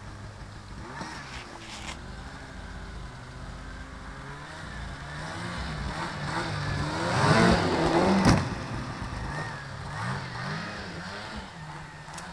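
Snowmobile engine revving up and down, growing louder to a peak about seven to eight seconds in, with a sharp click at the loudest point, then dropping back.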